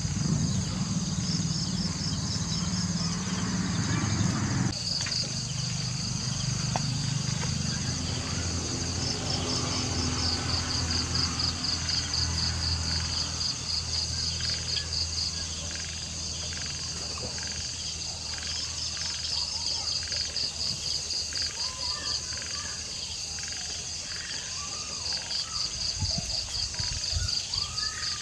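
Night insects, crickets among them, chirping steadily in rapid, even pulses. Underneath is a low rumble that cuts off about five seconds in and gives way to a steady low hum, with scattered short calls from other night creatures later on.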